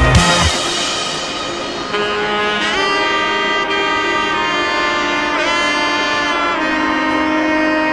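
Background music: a sustained, bending saxophone-like melody over held chords, after a drum-heavy passage cuts off about half a second in.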